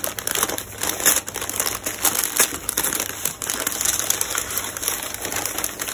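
Brown kraft wrapping paper crinkling and rustling as it is pulled open by hand, a continuous run of small crackles with a few louder ones.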